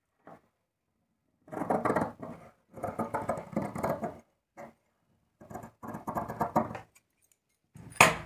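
Large tailoring shears cutting through blouse lining cloth on a wooden table, in two runs of snips with a couple of short ones between. A sharp knock near the end.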